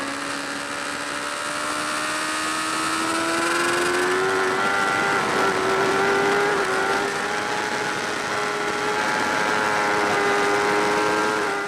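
Superbike engine at high revs, heard from on board as the bike is ridden at speed, its pitch climbing slowly through the first half and then holding high with a slight dip about two-thirds of the way in.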